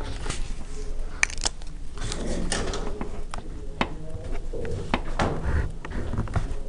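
A marker scratching across paper and a wooden ruler shifted and pressed down on the sheet. The sound is scattered light taps and clicks among short scratchy strokes, with a cluster of sharp clicks about a second in.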